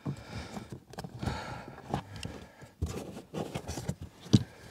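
Hands working on car interior parts: rustling with scattered light clicks and knocks as plastic trim and the fuse box are handled and fitted back, with one sharper click near the end.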